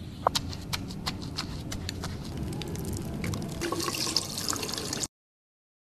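Wet, sticky clicking of a makeup brush's bristles being worked through soapy lather, then a tap running as the brush is rinsed under the stream. The sound cuts off suddenly about five seconds in.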